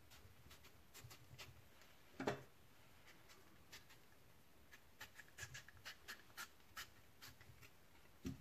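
Faint scraping of a knife peeling the skin off a hard, unripe mango in short strokes, with one louder knock about two seconds in.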